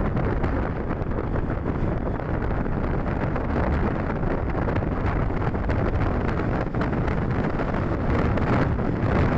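Steady wind rumbling over the microphone of a camera riding along a road, with faint road and traffic noise underneath.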